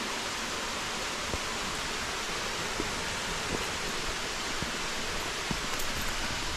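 Steady rush of a mountain stream's water, with a few faint knocks scattered through it.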